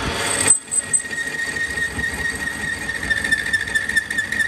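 Metal lathe cutting a chaff cutter rotor hub: the tool on the spinning workpiece gives a steady high-pitched squeal over the running machine. The sound drops out briefly about half a second in, and the squeal then holds to the end.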